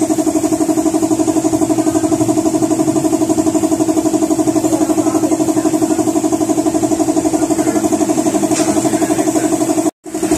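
A steady mechanical drone with an even, fast pulse of about seven beats a second, cutting out abruptly for a moment near the end.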